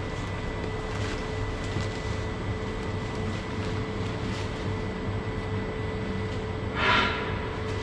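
Steady machine hum with a pulsing low drone, with soft rustling as sawdust is shaken from a plastic sack onto the floor; a louder brief rustling rush comes about seven seconds in.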